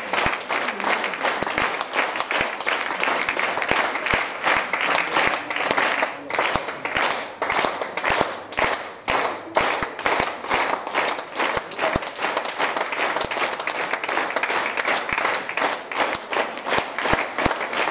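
Audience applauding, a dense patter of many hands clapping that thins out for a few seconds about six seconds in and then fills out again.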